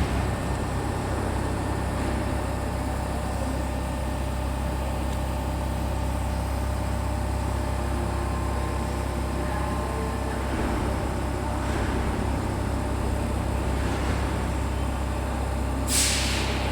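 Steady low rumble of a metro station with faint steady machine tones, and a short burst of air-like hiss near the end.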